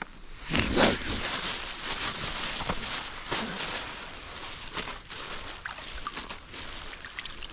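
Close rustling and handling noise with light splashes as groundbait is scattered by hand into shallow water. The loudest rustle comes about a second in.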